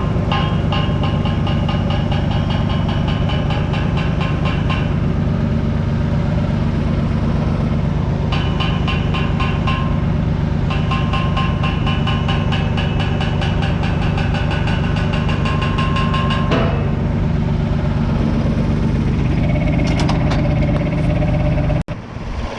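Farm machine engine running steadily under load. A rapid rattling whine comes and goes three times over it.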